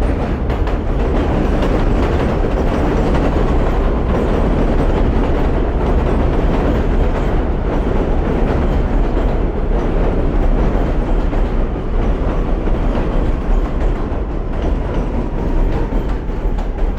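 New York City subway train (A line) pulling into the station: a loud, steady rumble of wheels on rails, with a faint falling whine in the last few seconds as it slows.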